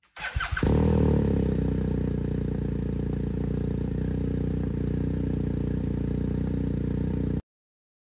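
BMW R1250 GSA boxer-twin engine firing with a brief clatter, then idling steadily through a Euro 5 Akrapovič slip-on muffler with its silencer insert fitted. The idle is a little louder in the first second and cuts off suddenly near the end.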